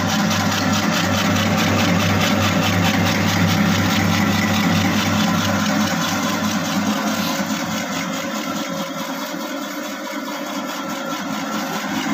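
Homemade horizontal dough mixer running with an empty stainless-steel tub: its electric motor drives the mixing paddles through a V-belt and pulley, with a steady low hum and whir. The sound eases a little in level for a few seconds near the end.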